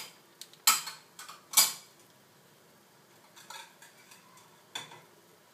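Kitchen clatter: a handful of short, sharp clicks and knocks with quiet between them. The two loudest come in the first two seconds, and smaller ones follow later.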